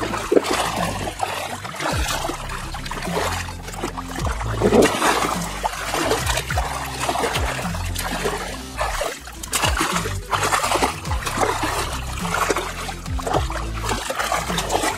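Water splashing and sloshing in a small inflatable paddling pool as a child kicks and paddles, in irregular bursts over steady background music.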